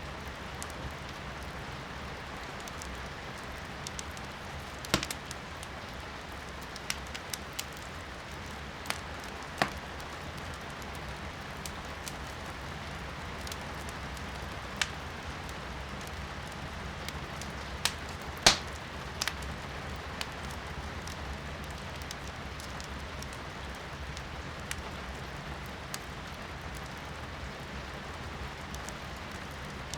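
Firewood burning in a fireplace, crackling with scattered sharp pops, the loudest about two-thirds of the way through, over a steady hiss of rain heard from indoors.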